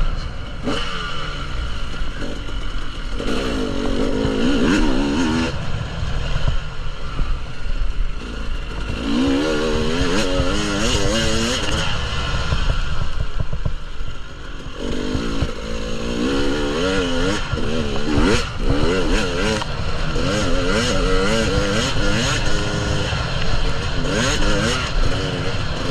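KTM 300 EXC two-stroke enduro motorcycle engine being ridden, revving up and down repeatedly through the throttle with wind on the microphone.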